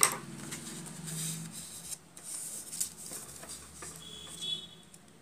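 Scissors snipping blue craft paper and the paper being handled on a wooden table: a sharp snip right at the start, then scattered rustles and taps, over a low steady hum. A short high beep sounds about four seconds in.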